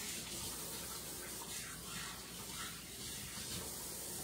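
Kitchen tap running in a steady rush of water as hands are washed under it.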